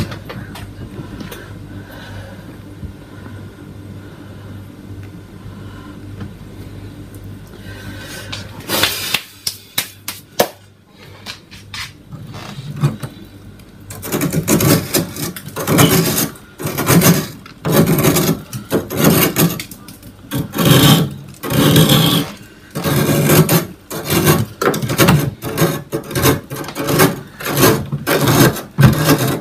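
Fingers scraping and rubbing soft frost off the inside walls of a freezer in rasping strokes. They start about a third of the way in and become louder and more regular, roughly one stroke a second, about halfway through. Before the scraping there is only a steady low hum.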